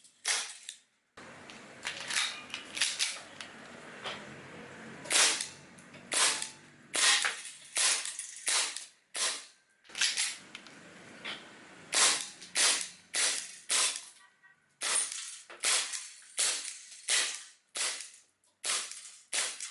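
Beretta-style airsoft pistol firing BBs shot after shot: sharp cracks, about one or two a second, with a few short pauses between strings.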